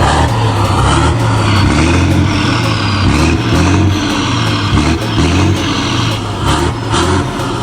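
Scania 113 straight-six diesel engine in an FNM truck, running loudly with a deep rumble.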